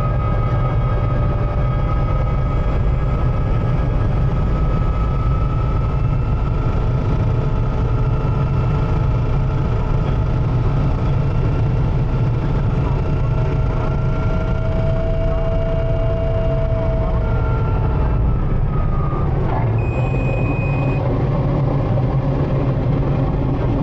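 Cabri G2 helicopter cabin noise: a steady low rumble from the piston engine and rotors, with several whining tones that drift slightly in pitch. A little after two-thirds of the way through, the whine changes and a short high beep sounds for about a second.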